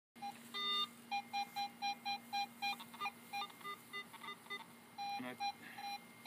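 Metal detector sounding a target: short electronic beeps, about four a second, mostly at one pitch with a few higher tones, over a faint steady hum.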